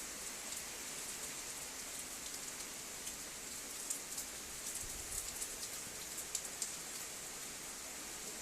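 Rain mixed with sleet falling: a steady hiss with many sharp ticks of drops and pellets striking a surface, coming thicker in the middle.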